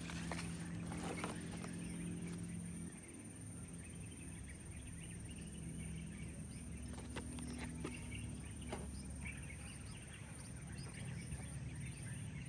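Outdoor ambience on grass: birds chirping faintly over a steady low hum that drops a little about three seconds in, with scattered clicks and crinkles from a plastic blister pack being handled.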